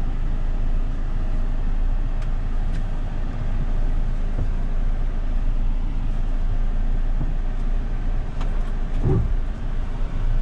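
Cabin sound of a Mahindra Thar diesel automatic creeping down a rough dirt slope under hill descent control, with no throttle input: a steady low rumble of engine and tyres on the rough track. A few faint knocks come through, about two seconds in and again near the end.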